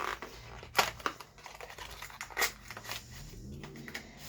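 A few sharp clicks and taps of an item being handled, the loudest just under a second in and again about two and a half seconds in.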